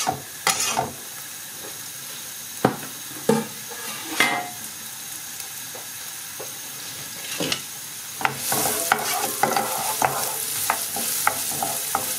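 Diced onion and garlic frying in oil in a nonstick frying pan: a steady sizzle with a few scattered knocks. About eight seconds in it grows louder as a wooden spoon stirs the onion around the pan, with many small clicks of the spoon against it.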